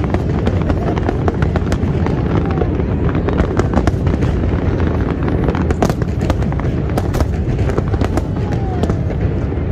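Fireworks display: a rapid, unbroken barrage of shell bursts and crackling over a steady low rumble.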